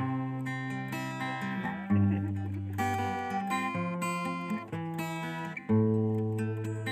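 Background music: acoustic guitar strumming chords, with a new strum about every two seconds.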